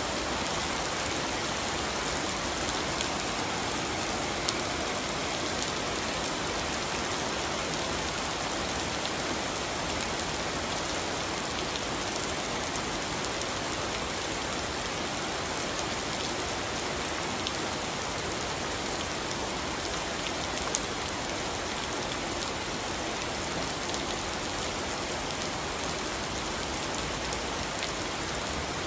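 Steady rain falling on clay roof tiles and a swimming pool: an even hiss, with the odd sharper tick of a single drop, about a third and about two-thirds of the way through.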